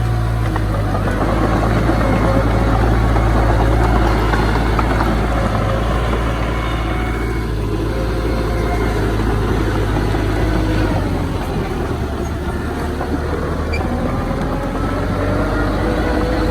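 Heavy diesel engine of earthmoving machinery running steadily with a clattering rumble, its pitch dipping around the middle and rising again near the end as the load changes.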